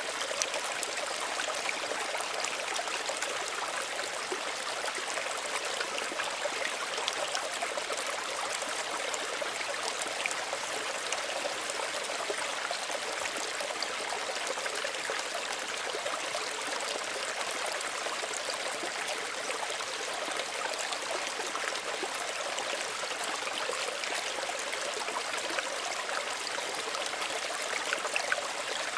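Small stream running steadily over stones, with a trickling, bubbling water sound that stays even throughout.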